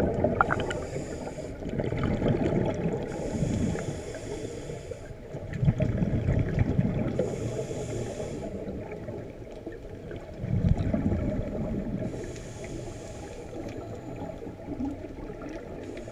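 Scuba diver breathing through a regulator underwater: a hiss on each inhalation alternating with a low bubbling rush on each exhalation, one breath every few seconds.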